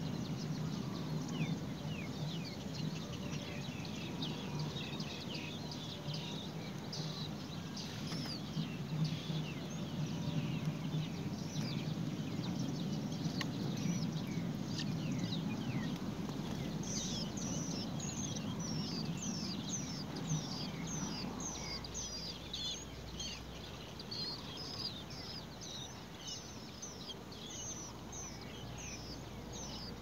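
Nestling songbirds begging at the nest: many quick, high chirps that slide downward in pitch, growing denser in the second half. Underneath is a low steady rumble that fades out about two-thirds of the way through.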